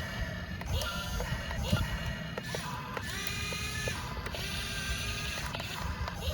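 Small electric gear motors of a toy remote-control excavator whining in short bursts, each rising in pitch as it spins up, with clicks and gear rattle as the arm and tracks start and stop.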